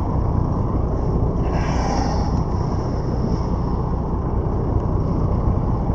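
Steady low rumble of a boat's engine running under way at sea. A short hiss comes about a second and a half in.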